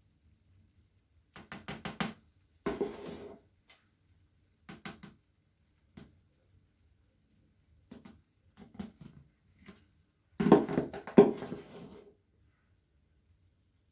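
Squishy, squeaky cleaning sounds come in short bursts of rapid crackling squelches separated by pauses. The longest and loudest burst comes near the end.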